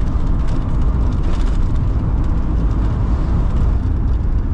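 Volkswagen Kombi van driving at highway speed: a steady low engine and road rumble.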